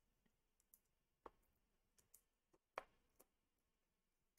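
Near silence with a few faint, short clicks and taps as foam adhesive dimensionals are peeled from their sheet and pressed onto paper die-cut flowers. The loudest tap comes a little under three seconds in.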